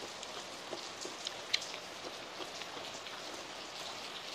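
Heavy downpour: a steady hiss of rain with scattered sharper drop sounds, one louder click about a second and a half in.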